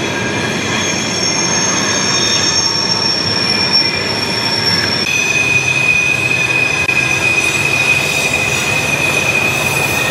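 Steel wheels of a freight train's container cars squealing steadily against the rail on a tight curve, over the rumble of the cars rolling past. The squeal shifts to a different, stronger note about halfway through.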